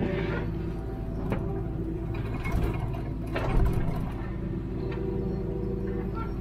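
Hitachi Zaxis 210W wheeled excavator's diesel engine running steadily, heard from inside the cab, with a few short knocks and clanks as the boom and bucket move.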